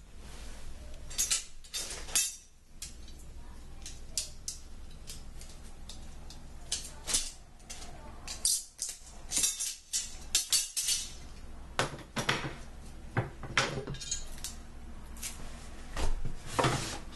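Long metal drawer rails and small hardware clinking and clattering against each other as they are picked out of a pile and handled, in irregular sharp clinks, louder near the end.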